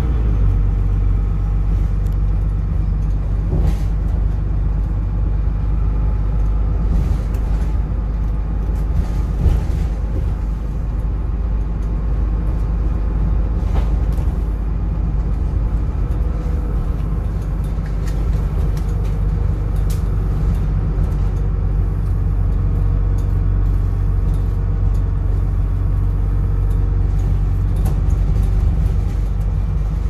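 Dennis Trident double-decker bus heard from the upper deck as it drives along, its diesel engine and driveline giving a steady low drone, with a few knocks and rattles from the body.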